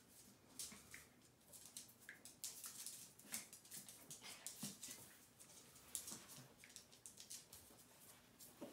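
Two small dogs play-fighting on a hard floor: a quiet, busy patter of claws clicking and scrabbling, with a few brief faint vocal sounds from the dogs.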